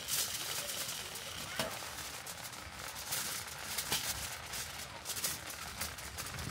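Wood fire crackling inside a camp wood stove: irregular small pops and ticks with a few louder snaps.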